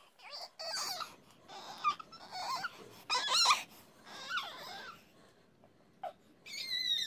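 A young boy's playful squeals and wordless vocal noises in short bursts, sliding up and down in pitch, with a higher squeal near the end.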